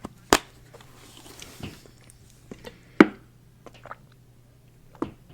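A few sharp clicks and knocks of objects being handled close to the microphone, the loudest about three seconds in, over a faint low steady hum.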